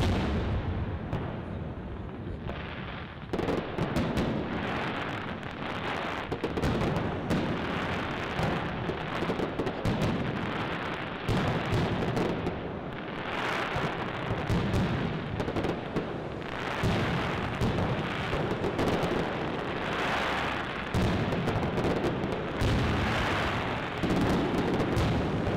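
Fireworks display: aerial shells bursting in quick succession, a dense run of bangs and crackling that thickens from about three seconds in.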